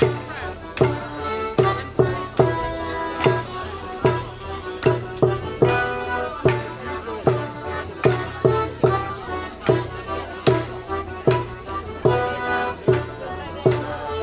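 Live folk tune played for morris dancing: a melody instrument carries the tune over sharp, regular percussive strikes, about two or three a second, keeping the dance beat.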